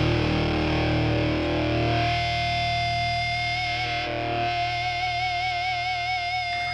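Rock band playing with a distorted electric guitar: a chord rings and fades, then a single long note is held with vibrato.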